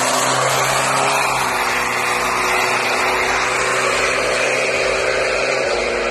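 Turbo-diesel engine running at a near-steady pitch, with a constant hiss over it.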